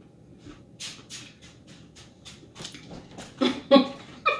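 Irregular soft clicks and smacks, about three a second, then a few short voice sounds about three and a half seconds in, the loudest part.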